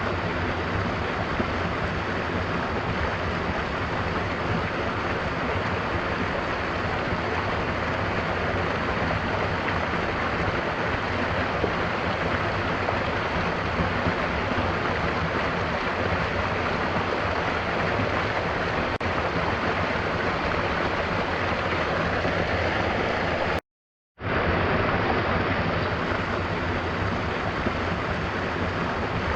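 Steady, even rush of falling water from a waterfall with gentle rain. It cuts out completely for about half a second roughly three-quarters of the way through, then resumes.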